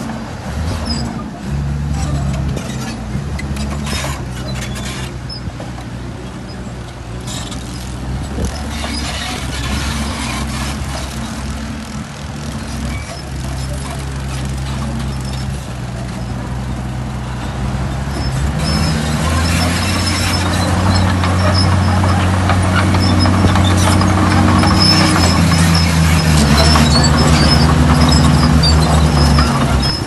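Heavy diesel engine of earthmoving machinery running steadily, growing louder and heavier about two-thirds of the way through, with high metallic squeaking over it in the second half.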